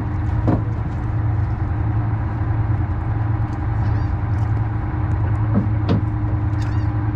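Fishing boat's engine running steadily, a constant low hum, with a few short high-pitched calls over it at about four seconds and again near the end.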